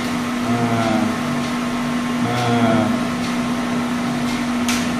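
Reverse osmosis water machine running with a steady hum and hiss while it flushes; the operator takes the flush as the sign of high TDS readings, meaning the water is still dirty.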